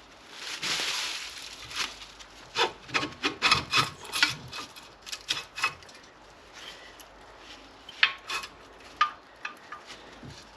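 Hand work on a car's front suspension: a scrape lasting about a second, then a run of short clicks and knocks from metal parts and tools being handled, with a few more near the end.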